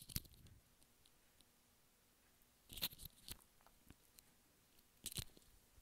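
Near silence broken by a few brief, soft clicks and rustles close to the microphone: one just after the start, two near the middle and one near the end.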